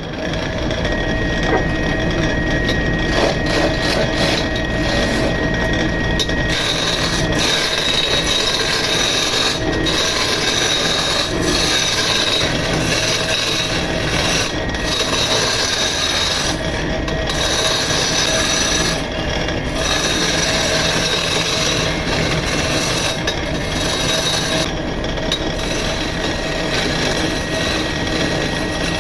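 Wood lathe spinning a wooden cot leg while a turning chisel cuts into it: a loud, steady scraping, rasping cutting noise. The high hiss of the cut drops away briefly several times as the tool eases off the wood.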